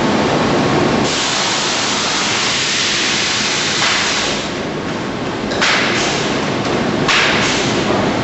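Compressed-air hiss from a pneumatic door-frame press and its air tools. The loud hiss comes and goes in sudden blocks, swelling about a second in, easing around four and a half seconds, and returning twice more.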